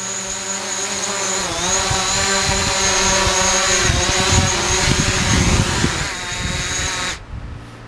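DJI Mavic Pro quadcopter's motors and propellers buzzing with a high whine, the pitch wavering as it descends and settles onto the landing pad. The motors cut off suddenly about seven seconds in.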